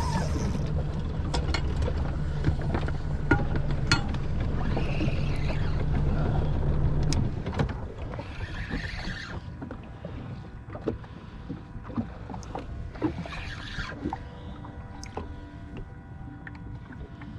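Boat engine running with a steady low hum that cuts out about seven seconds in, leaving a quieter bed of noise with scattered sharp clicks and knocks.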